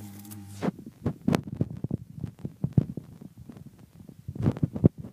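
Irregular muffled thumps and knocks of handling noise from a handheld camera being swung around and carried, a few thumps a second. A steady tone cuts off just under a second in.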